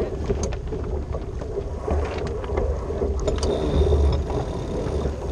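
Wind buffeting the microphone over water rushing past the hull of a J/105 sailboat under way, with scattered light clicks.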